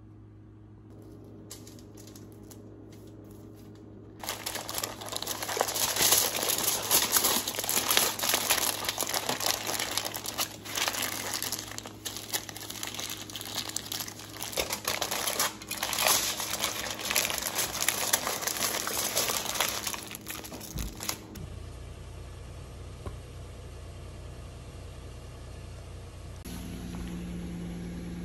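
Dense crinkling and rustling of something being handled, from about four seconds in until about twenty-one seconds in, over a low steady hum that continues alone afterwards.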